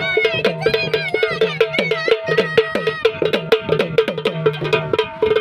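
Sambal, the paired stick-played Maharashtrian folk drum, played in a fast, even rhythm, its strokes bending in pitch. A wavering melody sounds above the drumming.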